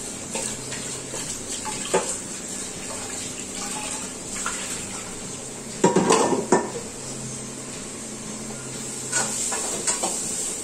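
A metal spoon clinking and scraping against a steel pan while stirring frying vegetables, over a steady hiss. The loudest knocks come in a quick cluster about six seconds in.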